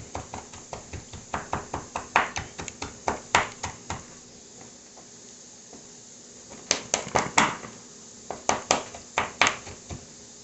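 Large kitchen knife chopping and mincing raw shrimp on a cutting board: quick repeated blade strikes on the board in a run of about four seconds, then two shorter runs after a pause.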